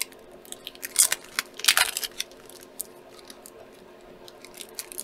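Handling noise of a collectible card and its packaging: a few sharp crackles and rustles in the first two seconds, then faint scattered clicks.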